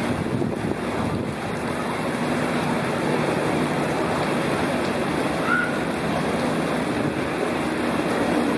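Steady rushing and churning of water pouring down a concrete salmon fish ladder crowded with returning salmon.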